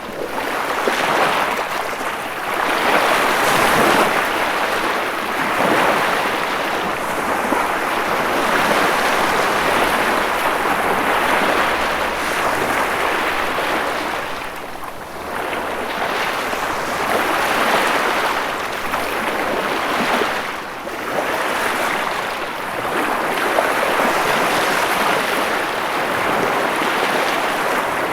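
Ocean waves breaking and washing on the shore: a continuous rush of surf that swells and eases every few seconds, with brief lulls about halfway through and again about two-thirds of the way through.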